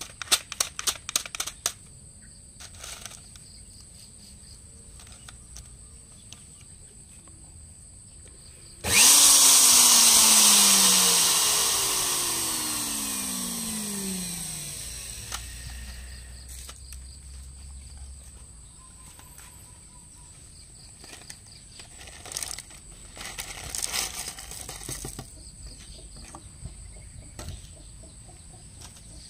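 Stainless-steel electric nut grinder with its blade spinning in the empty bowl. It comes in abruptly about nine seconds in at full loudness, then winds down, its whine falling in pitch and fading over about six seconds. A few sharp clicks are heard at the start, and some light clatter comes later.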